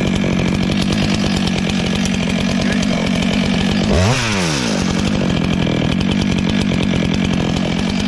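Stihl two-stroke chainsaw running steadily at speed, with a quick rise and fall in engine pitch about four seconds in.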